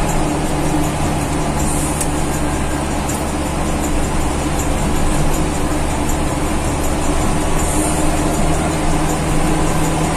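Steady drone of a Mitsubishi-engined bus's engine and road noise, heard from inside the passenger cabin while under way.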